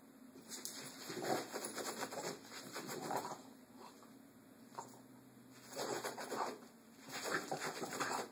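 French bulldog sniffing and snuffling with its nose pressed into a coir doormat, in three uneven bouts.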